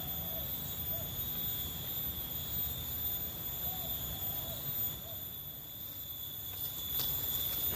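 Field insects, likely crickets, trilling in a steady high-pitched drone, with faint short calls repeating several times and a single click about seven seconds in.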